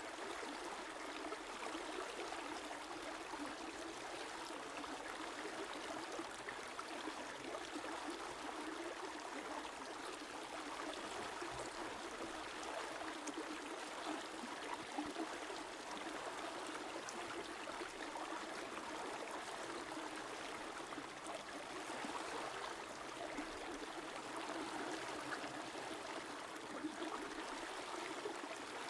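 A river flowing: a steady, even rush of running water that does not swell or break.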